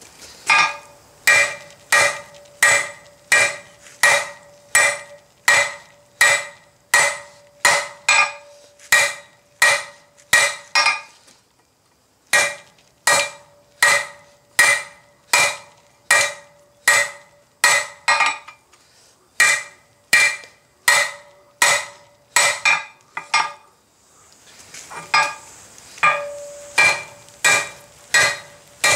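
Ball-peen hammer blows on hot steel bar over the edge of an anvil, a little over one strike a second, each with a ringing metallic clang from the anvil: fullering the flat bar to draw it out. The hammering stops twice for about a second, near the middle and a few seconds before the end.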